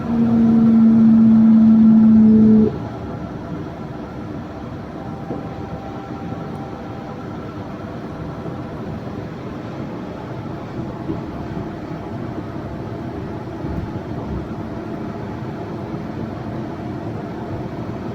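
Yurikamome Line rubber-tyred automated train running, a steady mix of running noise and faint motor whine. A loud steady tone sounds for about the first three seconds and cuts off suddenly.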